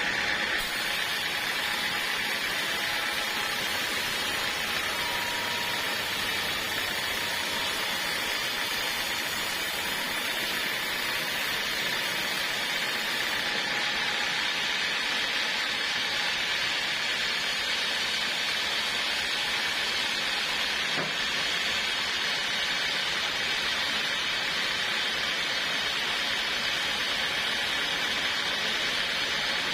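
Portable sawmill running steadily, an even mechanical noise that holds at the same level throughout.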